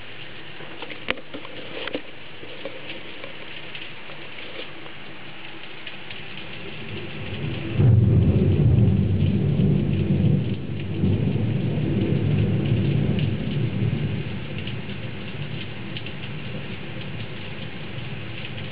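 Heavy rain with a long rolling peal of thunder. The rumble swells about seven seconds in, is loudest for a few seconds, then rolls on more quietly and dies away into the steady hiss of the downpour.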